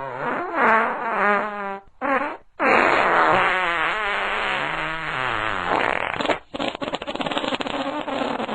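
Farts in quick succession: a long one with a wavering pitch, a short one about two seconds in, another long wavering one lasting several seconds, and a rapid fluttering, rattling one near the end.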